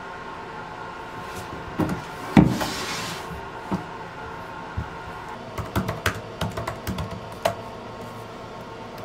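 A couple of dull thumps with a brief rustle, then a quick run of key clicks on a MacBook laptop keyboard as a web search is typed.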